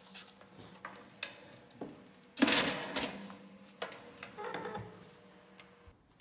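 Metal loaf pan set onto the wire rack of a Breville toaster oven, with a loud scrape and clatter about two seconds in. Then come knocks from the oven door and controls being handled, all over a steady low hum.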